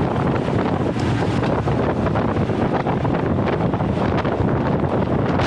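Steady wind buffeting the microphone of a handlebar-mounted action camera on a road bike riding at speed, mixed with tyre and road rumble. A few faint ticks sound through it.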